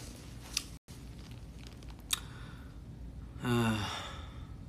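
A man's short voiced hum or sigh with falling pitch about three and a half seconds in, preceded by two faint clicks.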